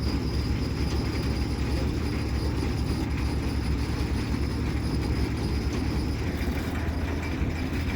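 Heavy farm machinery engine running steadily: an even low drone with a thin, steady high whine over it.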